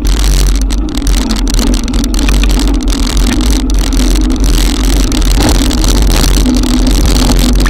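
Wind buffeting the camera microphone with the steady hiss of heavy rain and wet tyres while riding a Haibike e-bike through a cloudburst, over a wavering hum.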